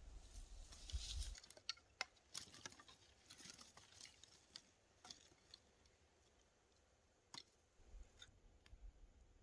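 Faint rustling for about the first second, then sparse, irregular small clicks and ticks that grow fewer toward the end.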